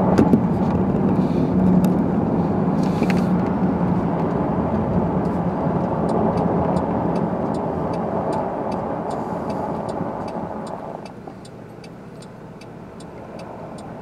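Car driving on a snow-covered street, heard from inside the cabin: steady engine and tyre noise that dies down about eleven seconds in as the car comes to a stop, leaving a quieter idle with a faint, regular ticking.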